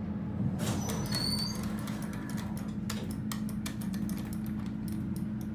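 Inside a hydraulic elevator cab: a steady low hum throughout, a few brief high-pitched chirps about a second in, and a run of sharp clicks from about three seconds on.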